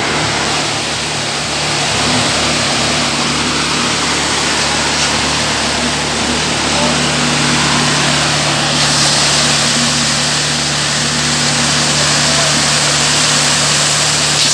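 Engine of a concrete mixer running steadily under a rushing hiss of wet concrete pouring in a continuous flow. The hum firms up about halfway and the hiss grows louder near the end.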